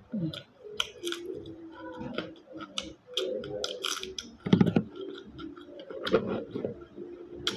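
Close-up eating of snails in coconut sauce: snail shells click sharply and irregularly as they are picked from the plate, with sucking and chewing between the clicks.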